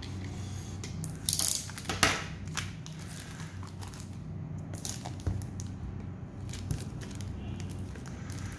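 Clear plastic shrink-wrap on a small cardboard box crinkling and crackling as it is cut and peeled off by hand. There are irregular rustles throughout, with a couple of louder crackles between one and two seconds in.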